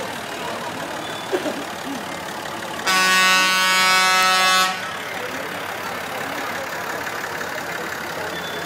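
A vehicle horn sounds in one steady blast of a little under two seconds, about three seconds in. Under it, parade vehicles' engines run, with a couple of short knocks just over a second in.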